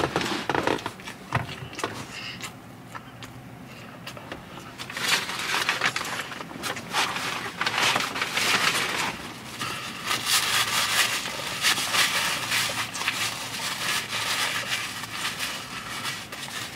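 Paper and plastic food packaging rustling and crinkling as it is handled, in near-continuous crackly bursts from about five seconds in.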